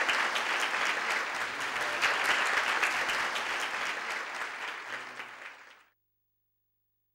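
Audience applauding: a dense patter of many hands clapping that thins out toward the end, then cuts off abruptly to silence about six seconds in.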